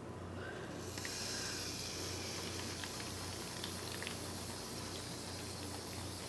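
Aerosol can of shaving foam spraying with a steady hiss that starts about a second in.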